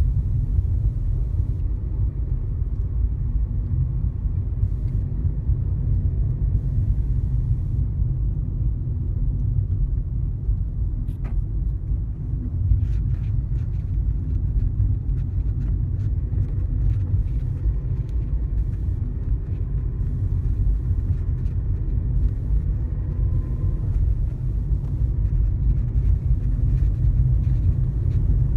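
Steady low rumble of a car driving at about 60 km/h, its engine and tyre noise heard from inside the car, with a few faint clicks partway through.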